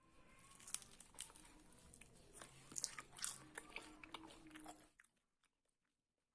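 Crunching and chewing of crisp food, with sharp crackles that stop about five seconds in.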